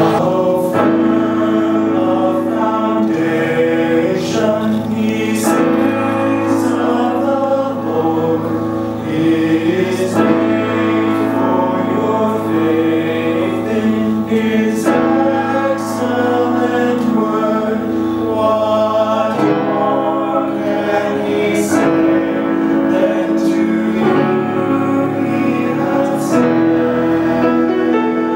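Mixed chamber choir of men and women singing held chords in harmony.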